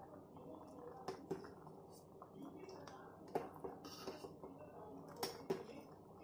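Pasta being stirred with a steel spoon in a stainless steel pot of boiling water: faint bubbling and swishing, with a few sharp knocks of the spoon against the pot.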